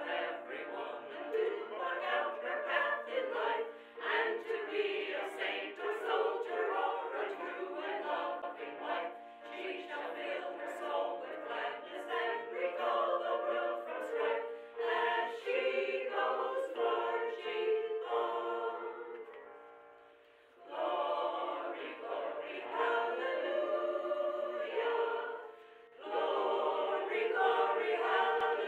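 Choir singing, a group of voices in harmony. The singing dies away about two-thirds through and starts again, then breaks briefly once more near the end.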